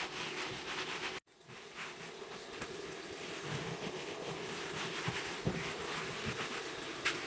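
Cloth scrubbing a tiled floor, a steady rubbing and swishing noise over a steady low hum. The sound cuts out briefly about a second in.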